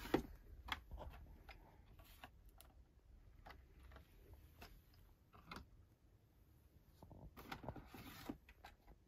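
Faint handling noises of blister-carded Hot Wheels cars being pulled from a cardboard case: light plastic clicks and taps, with a longer rustle near the end.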